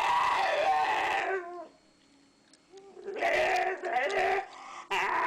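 An animal calling: three long, wavering cries, the second starting about three seconds in and the third near the end.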